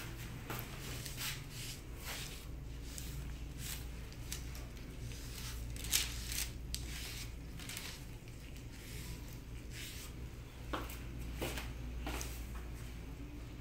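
Gloved hands wiping and cleansing the skin of a lower leg before waxing: scattered soft rubs and rustles, a few sharper crinkles, over a steady low hum.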